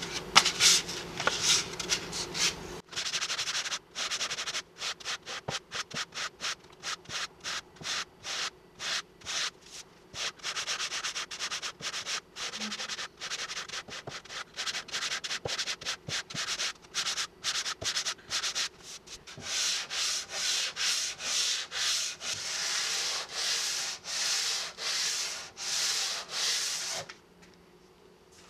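Hand sanding of cured two-part body filler on a car's front wing with 180-grit paper on a wooden block, in quick back-and-forth strokes, several a second. Near the end the strokes become longer and louder, then stop about a second and a half before the end.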